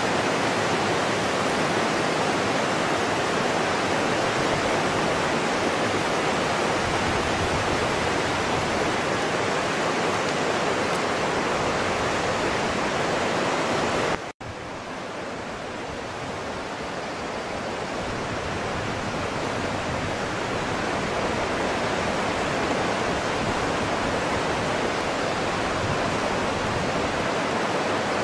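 Steady rushing hiss with no distinct events. About halfway through it cuts out suddenly, then comes back quieter and fades up over several seconds.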